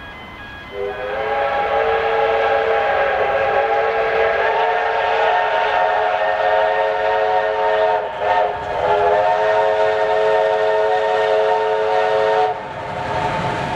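Steam locomotive whistles sounding a long blast of several pitches at once, beginning about a second in, broken briefly about eight seconds in and cutting off near the end. The rumble of the approaching steam train then rises.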